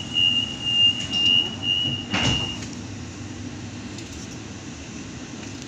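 Waratah Series 2 B-set train's door-closing warning, a high pulsing beep, with the sliding doors shutting in a single thump about two seconds in. The beeping stops soon after, leaving a steady low rumble in the carriage.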